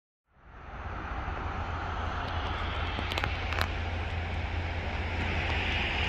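Steady rush of road traffic from a busy street, with a continuous low rumble, fading in just after the start; a couple of faint clicks come in the middle.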